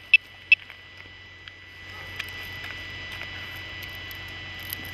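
Two short, sharp electronic beeps in the first half-second, ending a series of evenly pitched beeps, over a steady high tone and a low hum. From about two seconds in, a slightly louder steady hiss takes over, with faint high ticks.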